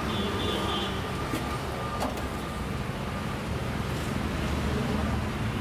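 Steady low rumble of road traffic, with a single sharp click about two seconds in.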